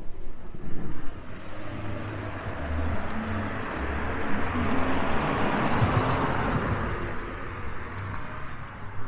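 A car drives past: engine and tyre noise swells over several seconds, is loudest around the middle, then fades away.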